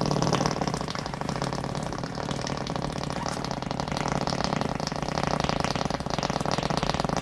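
A long, loud, wet and sputtering fart noise with a rapid fluttering rattle, splattering like diarrhea. It is a prank fart sound.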